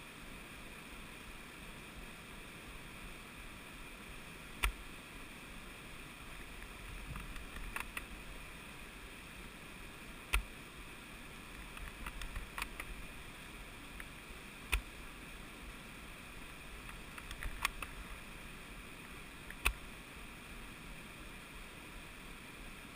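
Airsoft sniper rifle firing four sharp shots about five seconds apart, with lighter clicking between the shots, over the steady rush of a stream.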